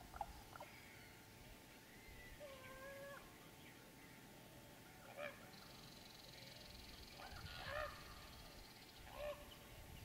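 Common raven calling: a series of faint, varied short calls, with one longer call held at a steady pitch about two and a half seconds in.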